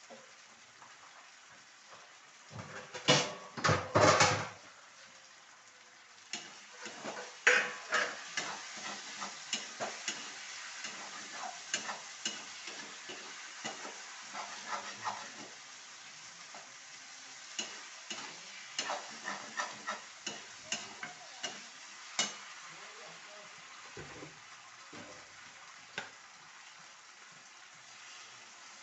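A metal spoon stirring and scraping in a pan of frying food, with a steady sizzle underneath. A few loud knocks and clatters come about three to four seconds in, then a long run of quick scrapes and clicks.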